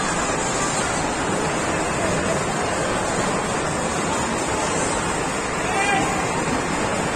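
Steady rushing noise of air moving over the microphone as it circles on a spinning kiddie car ride. A short high voice sounds near the end.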